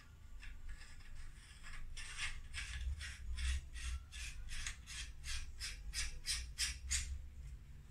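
Rigid endoscope adapter being screwed onto a plastic phone-holder base: short rasping twists of the threads, about three a second, starting about two seconds in and stopping near the end.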